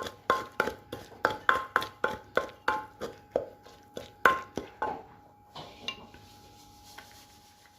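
Pestle knocking in a mortar as a Thai shrimp salad is pounded and mixed: about three sharp, slightly ringing knocks a second, stopping about five seconds in, with a couple of faint knocks after.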